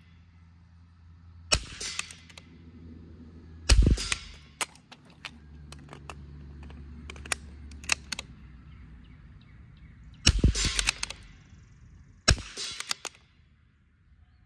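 Four shots from a Vudoo .22 LR bolt-action rimfire rifle in a timed string: two about two seconds apart, then a gap of about six seconds, then two more about two seconds apart. Quieter clicks fall between the shots as the bolt is worked.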